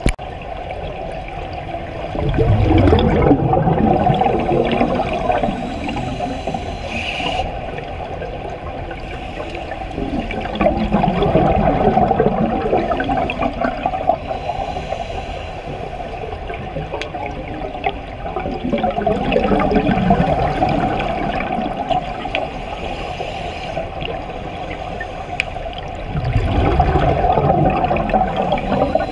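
Scuba breathing heard underwater: exhaled bubbles bursting from a diver's regulator in four long surges, one every seven or eight seconds, with a steadier low water rush between breaths.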